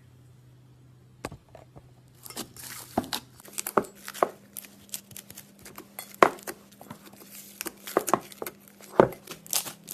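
Slime being squeezed and worked by hand, with a quick, irregular run of crackles and pops starting about two seconds in, over a faint steady hum.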